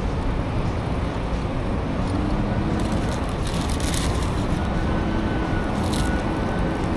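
Steady street traffic noise, with the paper wrapper of a pastry crinkling briefly a couple of times as it is unwrapped and handled.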